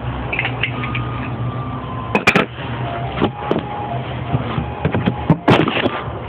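Several sharp metal knocks and clinks from handling axle parts and tools, over a steady low hum.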